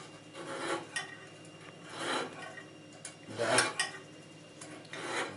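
A blade being sharpened on an abrasive stone in a sharpening jig: four slow strokes about a second and a half apart, each swelling and fading, with a light click about a second in.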